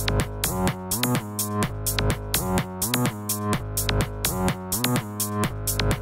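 Electronic background music with a steady beat and sliding bass notes, the pattern repeating about once a second.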